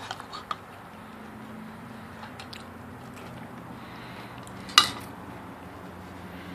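A dog crunching dry cereal: scattered sharp crunches, a cluster at the start, a few more about two seconds in and one loud crunch near the end. A faint steady low hum runs underneath.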